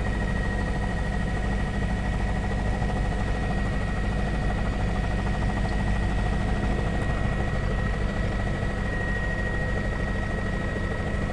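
Helicopter cabin noise: a steady drone of engine and rotor, with a steady high whine running over it.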